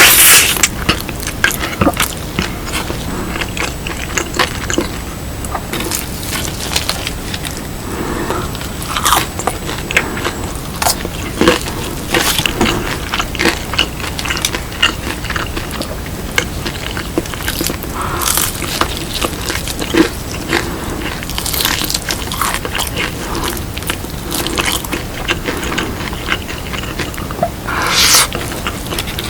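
Close-up crunching and chewing of crispy seasoned fried chicken (BHC Puringkle), irregular crackly bites with a few louder crunches at the start and near the end.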